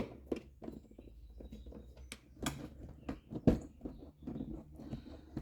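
Irregular small clicks and scrapes of a T20 Torx screwdriver working the screws out of a car's air filter box lid.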